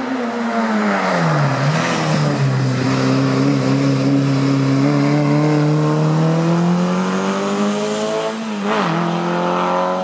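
Race car engine in a hill climb. The note falls as the car slows into a bend, then climbs steadily as it accelerates away, with a sharp dip from a gear change near the end.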